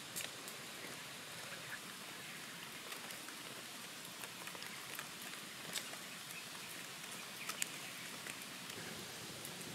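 Small wood fire crackling: a steady hiss with scattered sharp pops.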